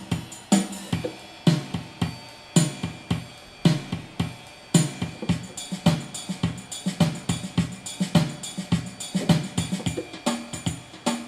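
Yamaha PSR-350 electronic keyboard playing its built-in country-style auto-accompaniment: a drum-kit beat with bass, snare and cymbal and pitched backing notes. The pattern gets busier about halfway through.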